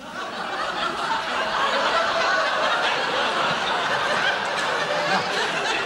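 Studio audience laughing, swelling over the first second or so and then holding steady.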